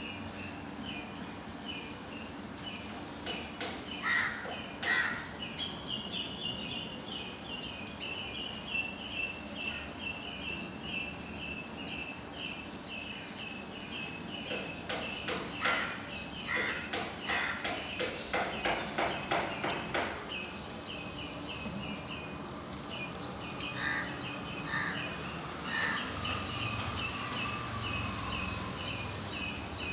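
Birds calling: a short, high chirp repeated steadily two or three times a second, with louder, harsher calls in clusters about four seconds in, again from about fifteen to twenty seconds, and once more near the end.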